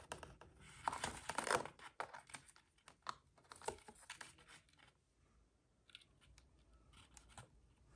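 Scattered light taps, clicks and rustles from a cricket container and spider enclosure being handled and tapped to shake crickets out. Busiest in the first couple of seconds, almost silent about five seconds in, then a few faint clicks.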